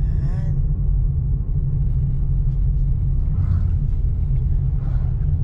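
Steady low rumble of a car on the move. A short falling pitched sound comes right at the start.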